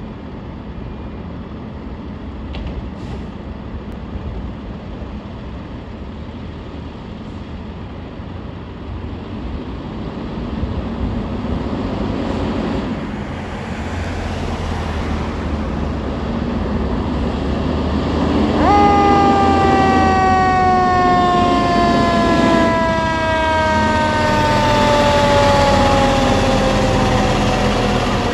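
Tractor-drawn aerial fire truck's diesel engine rumbling louder as it pulls out. About two-thirds of the way in, its siren winds up sharply, then slowly falls in pitch for about ten seconds, and starts winding up again at the very end.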